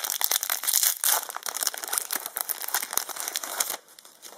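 Foil Yu-Gi-Oh booster pack wrapper crinkling as it is handled and torn open. The dense crackling stops near the end.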